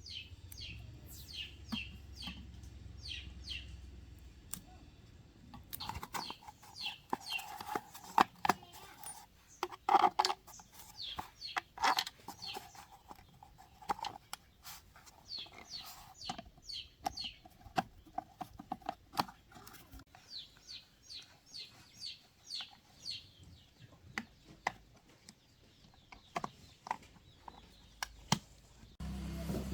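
Birds chirping in many quick, short, falling notes, with sharp clicks scattered among them. A low hum underneath stops about six seconds in.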